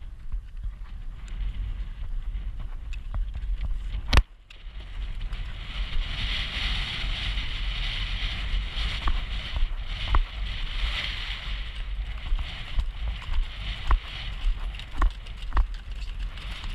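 Wind buffeting the microphone of a camera on a cantering horse, a steady low rumble with scattered knocks of hooves and tack. A single sharp crack about four seconds in, after which a hiss rises and holds for several seconds.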